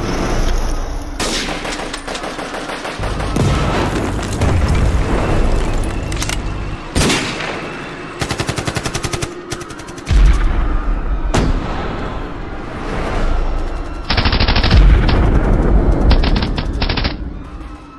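Bursts of automatic gunfire, with a fast even rattle of about nine shots a second around the middle. Deep booms come about ten seconds in and again near the end, and the firing fades away at the close.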